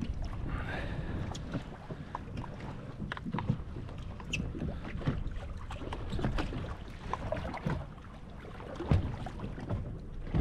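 Wind buffeting the microphone on an open fishing boat at sea, over a steady low rumble, with scattered light clicks and knocks.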